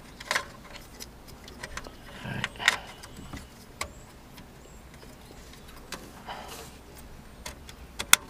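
Scattered plastic clicks and light knocks of a car head unit and its wiring connectors being handled and pushed back into the dash, with a sharp double click near the end.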